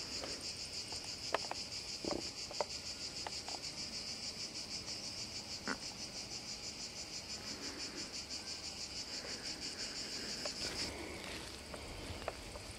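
Summer insects singing in a field: a steady, high, rapidly pulsing buzz that cuts off abruptly about eleven seconds in, leaving a fainter one behind. A few light clicks and knocks sound in the first six seconds.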